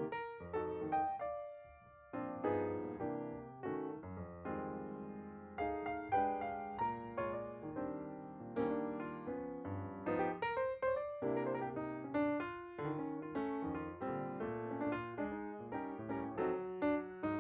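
Background piano music: a gentle melody of struck notes that fade after each strike.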